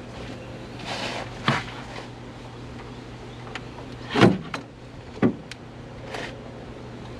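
A few sharp knocks and clicks from hands and tools working on the truck's nitrous fittings, the loudest about four seconds in, with smaller ticks and some rustling between them. Under them runs a steady low hum.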